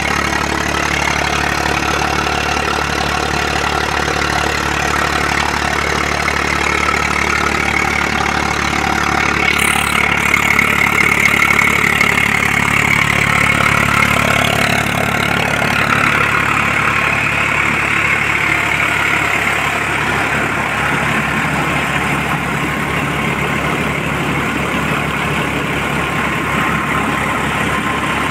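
Eicher 380 tractor's diesel engine running steadily, with a slight change in its note about halfway through.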